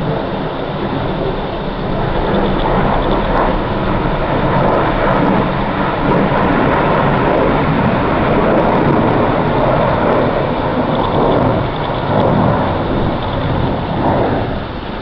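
Military aircraft engines in a formation flypast passing overhead: a steady rumble that builds about two seconds in and drops away about a second before the end.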